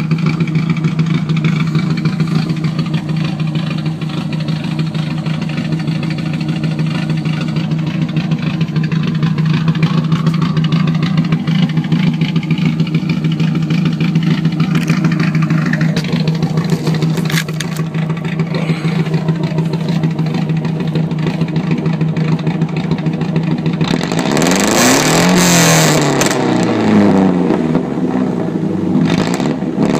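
1992 Volvo 245's engine, fitted with an RSI A cam, running with no exhaust on it at all, an open pipe with no muffler. It idles steadily, then about three-quarters of the way through it is revved several times, the pitch rising and falling with each blip.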